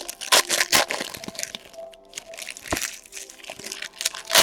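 Trading card pack wrappers being torn open and crinkled, with sharp crackling snaps, the loudest about half a second in and again near the end.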